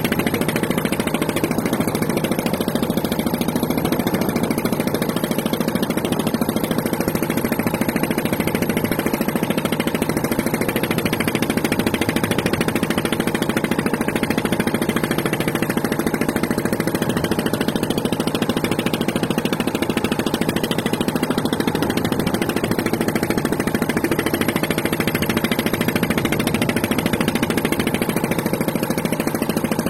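An engine running steadily at an even speed, with a constant pitch and no revving or change.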